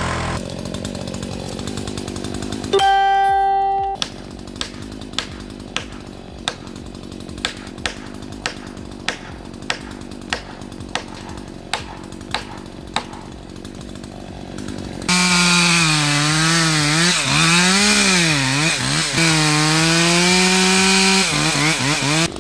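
A short steady tone, then sharp regular clicks about two a second, then a two-stroke chainsaw running at high revs from about halfway through, its pitch rising and falling as it is throttled and loaded in the cut.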